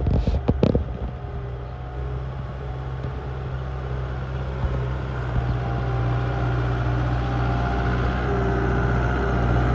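Kubota M6040SU tractor's diesel engine running steadily under load, a little louder toward the end, with a few sharp knocks in the first second.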